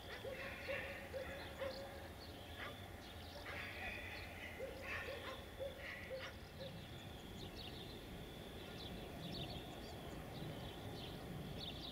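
Outdoor ambience with several runs of short, quickly repeated animal calls in the first half, over a steady high-pitched hum; no train is running.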